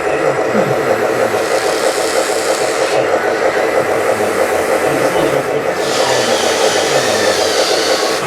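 A steady, loud engine-like running noise, with faint low tones shifting up and down in pitch beneath it.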